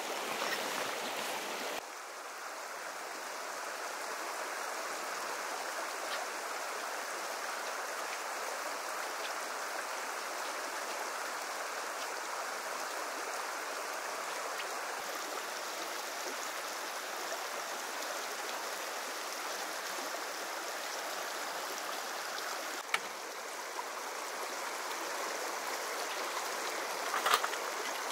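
Steady rushing of a river flowing, with a couple of brief clicks and knocks in the last few seconds.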